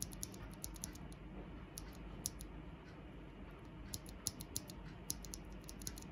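Typing on a mechanical keyboard fitted with Durock POM linear switches and SA-profile keycaps: quiet, irregular keystrokes with a couple of short lulls.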